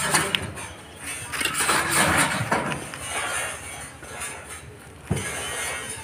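Corrugated steel roofing sheet scraping and rattling as it is hauled up on a rope, with one sharp knock about five seconds in.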